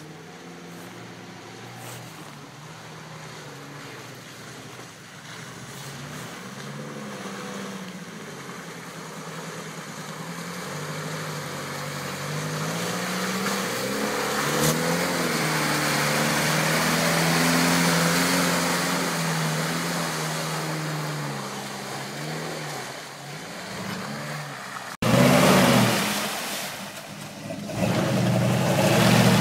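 Off-road 4x4 SUV engine revving up and down as it crawls through deep mud, growing louder as it approaches and passes. About 25 s in it cuts to a louder, close-up burst of a mud-tyred 4x4 churning through mud under throttle.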